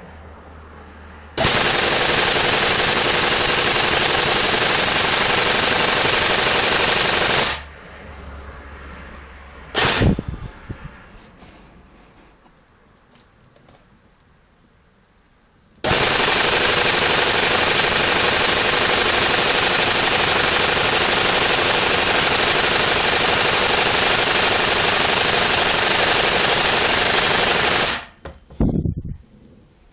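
Tokyo Marui next-generation electric airsoft gun (SCAR-L) firing two long full-auto bursts, one of about six seconds and one of about twelve, with a short loud sound about ten seconds in and another near the end.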